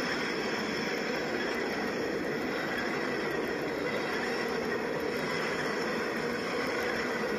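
N scale model passenger train running steadily along the track at close range: an even whir of the motor and wheels on the rails that does not change.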